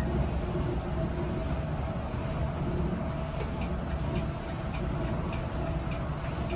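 Steady low rumble of the Volvo 9600 sleeper bus cruising on the highway, heard from the front of the cabin: engine and road noise with a faint steady hum. From about halfway through, a light tick repeats at an even pace, a little under twice a second.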